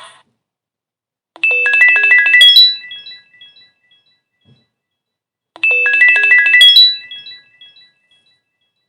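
A Samsung Wave II (GT-S8530) phone ringtone plays: a short phrase of bright notes stepping upward, heard twice about four seconds apart, each time ringing out.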